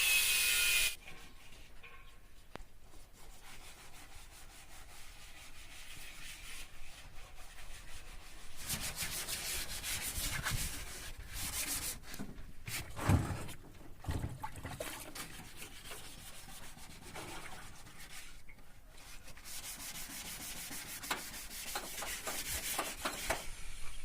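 Hand sanding of the car's bodywork: a long run of quick, rasping back-and-forth strokes, with one louder knock about halfway through.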